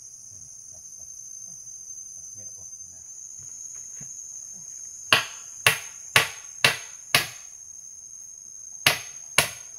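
Forest insects shrilling steadily at a high pitch. About halfway in, a run of sharp, loud blows starts, five at about two a second, then after a short pause two more near the end.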